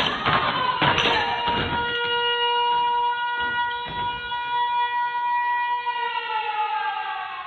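Stage percussion routine on brooms and bins: a few sharp strikes, then a long siren-like tone held steady for about four seconds that slides down in pitch near the end.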